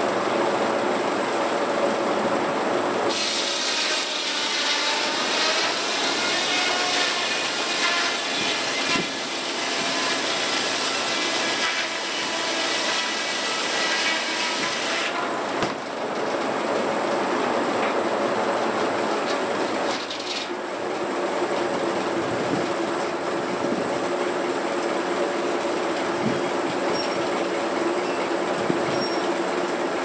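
Antique circular sawmill at work: the big blade cuts through a log on the rail carriage from about 3 s to about 20 s. For the rest of the time the blade and its belt-driven power unit run steadily without cutting.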